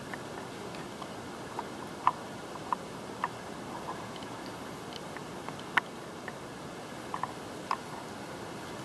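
Steady hiss with light clicks and ticks at irregular intervals, about eight in all; the loudest comes near the end of the sixth second.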